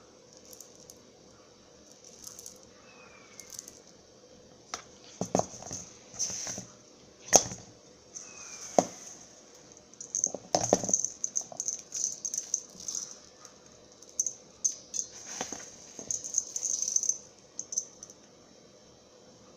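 Small hard loose pieces poured slowly into a cup, rattling and clicking in irregular bursts through the middle of the stretch.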